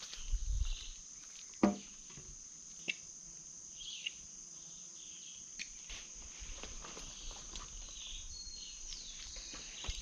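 Steady high-pitched insect chorus filling the woodland. A low thump comes about half a second in and a sharp knock just under two seconds in, with scattered faint ticks and rustles.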